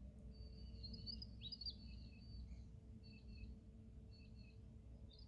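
Australian magpies warbling faintly in fluted phrases, with a longer run of song in the first couple of seconds, shorter phrases after it, and a new phrase starting near the end, over a steady low hum.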